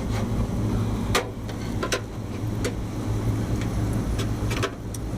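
A few sharp metal clicks and knocks from hand tools on a rooftop AC unit's sliding motor mount, as the motor is levered to put tension on it. They sound over a steady low machinery hum.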